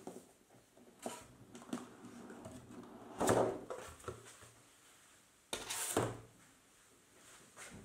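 A cardboard board-game box being handled and opened: the lid is slid off and the box and its contents are moved and set down. The result is a series of short scrapes and knocks, loudest about three seconds in, with another long scrape around six seconds.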